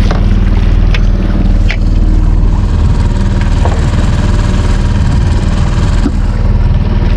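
Boat engine running steadily at trolling speed, a loud low hum, with a couple of short knocks about one and two seconds in.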